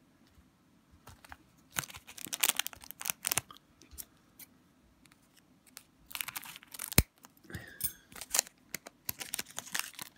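Foil wrapper of an Upper Deck Portfolio hockey card pack crinkling and tearing as the pack is handled and opened, in several crackly spells with one sharp click about seven seconds in.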